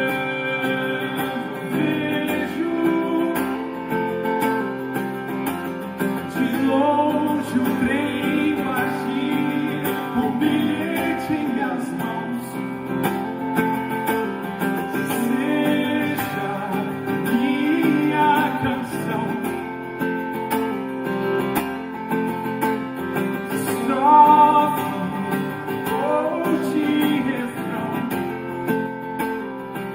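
Music: a song played on guitars and other instruments, with a melodic line gliding in and out over them.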